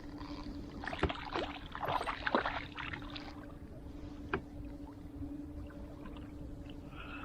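Water splashing and knocks of gear handled aboard a fishing kayak, loudest in a cluster about a second into the sound, with a single sharp click later. A steady low hum runs underneath.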